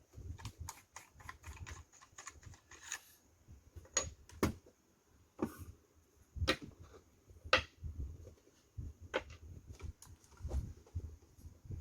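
Parts of a vintage MGC M93R Auto-9 airsoft replica pistol being handled and unscrewed during disassembly: scattered light plastic clicks and taps, with a handful of sharper knocks.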